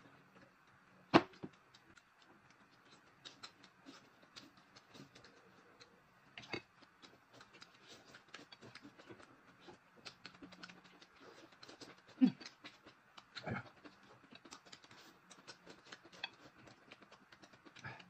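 Two people eating at a table: steady chewing and small mouth clicks, with a few brief louder knocks of tableware.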